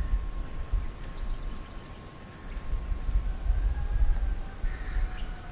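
Gusty low wind rumble on the microphone, with a small bird giving a quick high double chirp three times, about two seconds apart.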